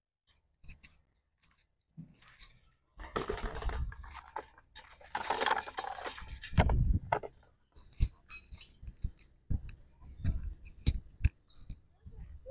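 Chains of a disc golf basket jangling and clinking as discs are pulled out of the basket, followed by a few lighter clicks.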